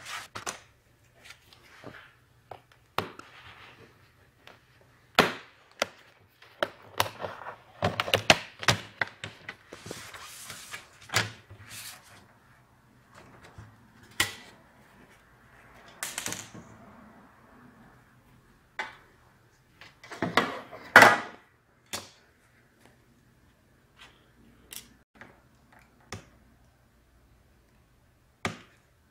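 Laptop being taken apart by hand: sharp plastic clicks, knocks and scraping as its plastic bottom cover is prised loose and lifted off, with the loudest knocks about two-thirds of the way through.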